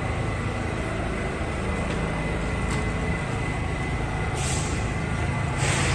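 Kawasaki R68A subway car standing at the platform with a steady low hum, then two short hisses of air about four and a half and five and a half seconds in, from its air brakes releasing just before it departs.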